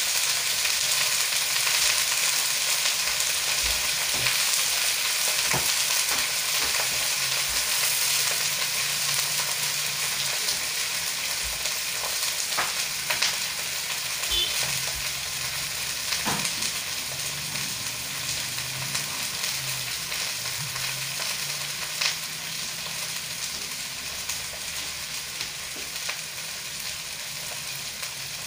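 Steady sizzle of food frying in hot oil in a wok on a gas burner, growing slowly quieter, with a few small ticks and pops.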